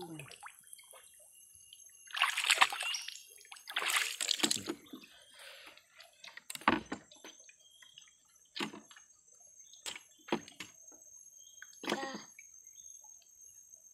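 Water splashing and pouring off a fish trap as it is hauled out of the river into a boat, two loud splashes a couple of seconds apart. These are followed by a handful of short knocks as the trap and containers are handled in the boat.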